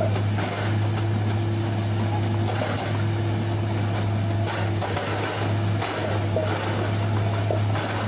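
Harsco track-laying machine running, a steady low engine hum with a constant higher tone above it, broken by a few sharp metallic clicks.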